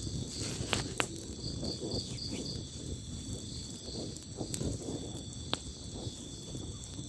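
A wood campfire burns with a low rushing crackle and a few sharp pops. Behind it, insects chirp in short, evenly spaced pulses.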